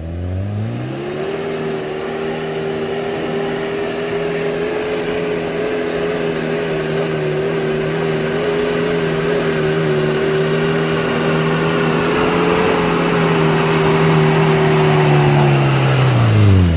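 Off-road vehicle engine revving up in the first second and held at high, steady revs under load for a long stretch, then the revs drop just before the end.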